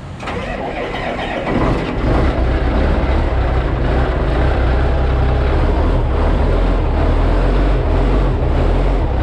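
Diesel engine of a 2013 Western Star dump truck running steadily with a low rumble. It grows louder over the first second or two, then holds level.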